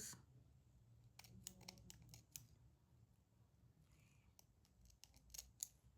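Faint clicks of a pair of scissors being handled, opened and closed. The clicks come in two short clusters, about a second and a half in and again near the end.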